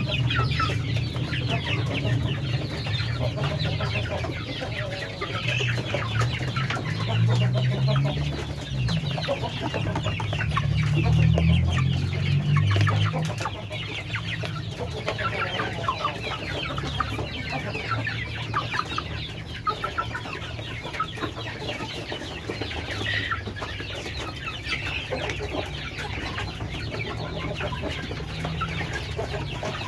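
Flock of kampung (Indonesian native) chickens clucking steadily while they peck feed at a hanging feeder. A low rumble swells under the clucking about a quarter of the way in and fades again before the middle.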